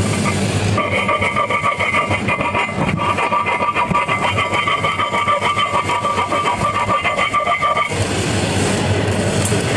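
Angle grinder with a thin cut-off wheel running with a steady high whine, tracing along the edges of a freshly capped weld to dress it. The whine starts about a second in and drops away about eight seconds in, giving way to rougher noise.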